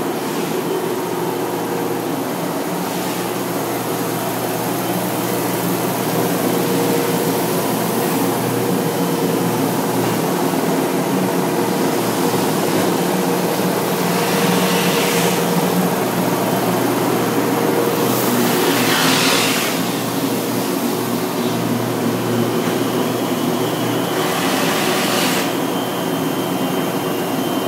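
Woodworking shop machinery running: a steady mechanical hum made of several held tones. Three times it is joined by a louder burst of hissing noise, the strongest lasting about two seconds.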